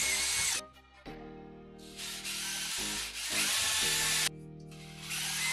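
Power drill boring through a laminate-faced board, the bit cutting with a hissing, grinding noise over the motor's whine. The cutting stops briefly about half a second in and again about four seconds in.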